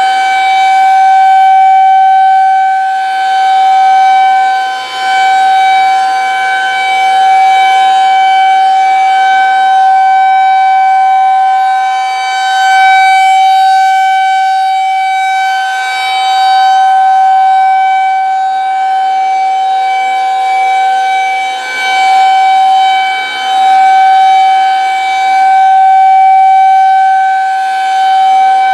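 Federal Signal 2001-130 rotating outdoor warning siren sounding its steady alert tone: one loud held pitch that swells and fades every few seconds as the rotating horn sweeps toward and away.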